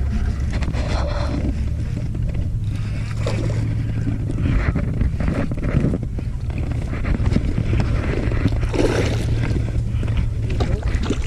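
Wind buffeting the microphone on a small fishing boat, over a steady low hum, with scattered faint knocks and rustles.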